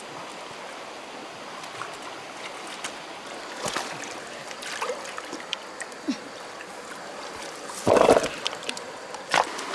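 Steady running water with scattered small splashes and clicks, and a louder splash or thump about eight seconds in and a sharp one just before the end.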